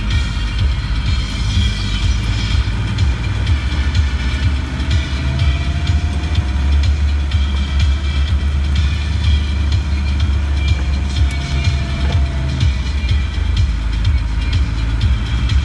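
In-cab noise of a Land Rover crawling along a rutted green lane: a steady low diesel drone with the body and fittings rattling and clattering over the bumps.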